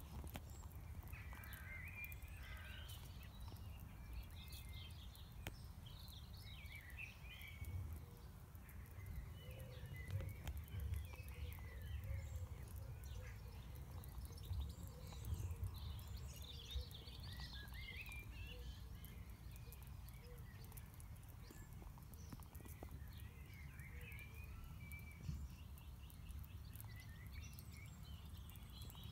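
Small birds twittering on and off in short chirps over a steady low rumble, with occasional soft rustles.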